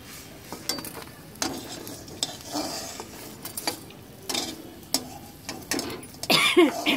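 Steel spatula scraping and clinking against a steel kadhai as pan-fried taro-leaf rolls are lifted out, with a little leftover oil sizzling. There is a louder scrape and clatter near the end.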